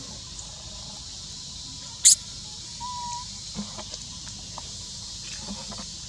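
Baby macaque giving one short, shrill squeak about two seconds in, over a steady high hiss, followed by a brief whistle-like call and a few faint taps.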